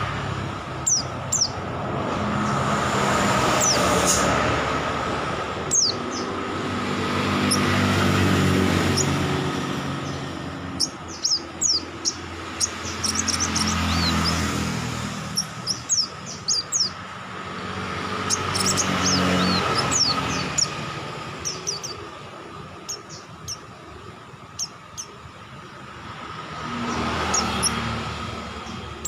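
White-eyes (pleci) chirping in quick clusters of short, high notes that drop steeply in pitch. Behind them vehicles pass one after another, each rumble swelling and fading.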